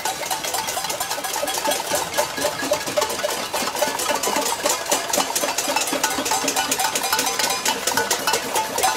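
A crowd banging pots, pans and other objects in a dense, continuous metallic clatter, a protest noise-making.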